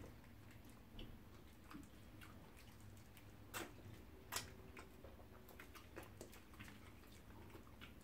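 Quiet eating sounds: scattered wet mouth smacks and clicks from fufu and pepper soup being eaten by hand, with two louder smacks around the middle.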